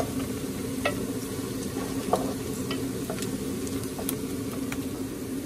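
Diced onions frying in oil in an aluminium pressure cooker, stirred with a wooden spoon: a steady sizzle with scattered taps and scrapes of the spoon against the pot.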